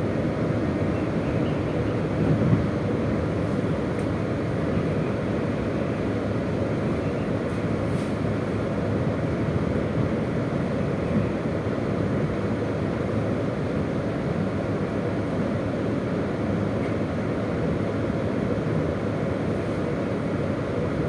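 A KiHa 201 series diesel railcar running, heard inside the passenger car: a steady rumble of the diesel engine and the wheels on the rails.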